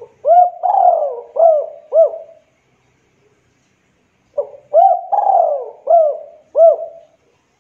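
Spotted dove cooing: two phrases about two seconds apart. Each phrase is a short lead note followed by four rounded coos, and the second coo of each phrase is drawn out longer than the rest.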